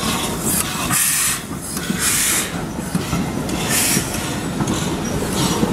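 'Brighton Terrier' 0-6-0 tank steam locomotive moving slowly, with loud puffs of exhaust steam every second or two over a low rumble of the engine and wheels.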